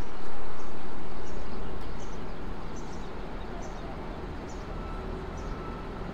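Vehicle noise that fades steadily away, with a short high chirp repeating every second or so.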